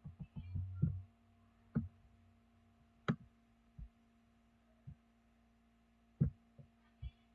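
Computer mouse clicks and soft low thumps of handling near the microphone, irregular and scattered, with one sharper click about three seconds in, over a faint steady electrical hum.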